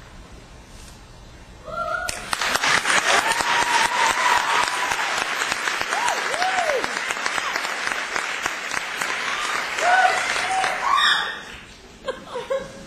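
Audience applauding and cheering, with shouted whoops over the clapping; it breaks out about two seconds in and dies down near the end.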